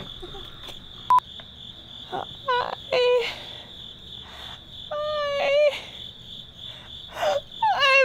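A woman's acted sobbing and wailing for a film take, in short strained bursts about two and a half seconds in, around five seconds in, and again near the end. A sharp click about a second in, and a steady high-pitched whine underneath.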